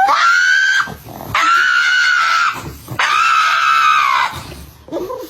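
An animal giving three long, high-pitched cries in a row, each lasting about a second, with short pauses between them.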